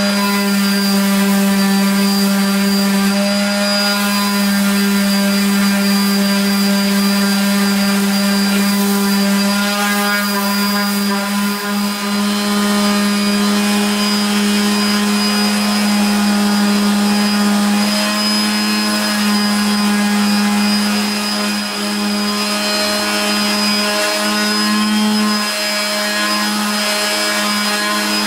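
Hilti WFO 280 belt sander running at a steady pitch, a wooden knife handle held on its moving belt being sanded smooth.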